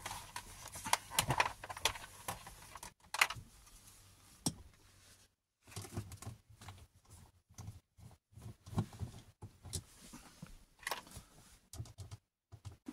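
Screws being undone and a plastic floor access cover handled with a screwdriver: scattered clicks, taps and short scrapes of the tool, the screws and the plastic, with brief pauses between them.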